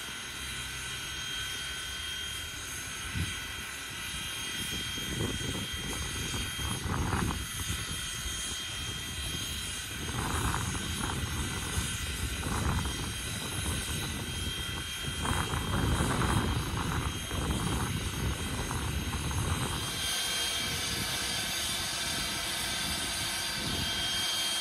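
Canadian Pacific 89, a 2-6-0 steam locomotive, standing at rest with steam up: a steady hiss and thin high whine, with irregular low rumbling that swells from about five seconds in and eases off near twenty seconds.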